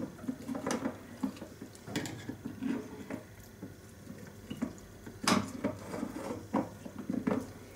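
A spoon stirring and scraping through a thick mix of chopped lemon and garlic in honey in a jar, with irregular clicks and knocks, the loudest about five seconds in. The mix is stiff and hard to stir.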